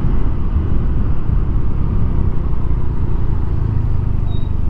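Motorcycle ride heard through a foam-wrapped helmet microphone: a steady low rumble of wind buffeting the mic, mixed with the engine running underneath.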